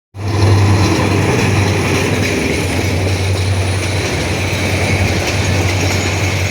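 A train running: a steady, loud rumble with a low drone underneath.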